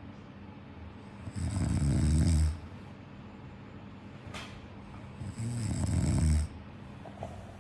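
Snoring: two long snores, each about a second long, the first a second and a half in and the second about five and a half seconds in, with quieter breathing between.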